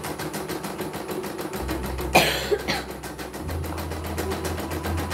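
CNY home embroidery machine stitching a design at a fast, even rate of about eight to nine stitches a second, running smoothly during a test stitch-out. A short, loud, cough-like noise cuts in about two seconds in.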